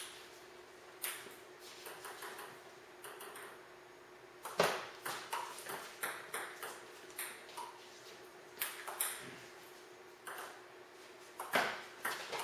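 Table tennis ball clicking off the bats and the table, in short irregular runs of light ticks, with two louder hits about four and a half and eleven and a half seconds in.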